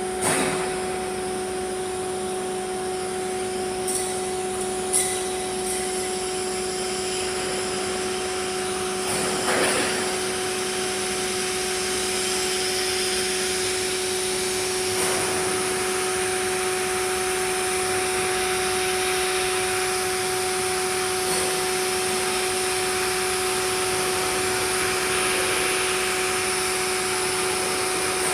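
CNC lathe running in manual mode to face a workpiece: a steady whine over a hiss, with a few brief scraping bursts, the strongest about ten seconds in.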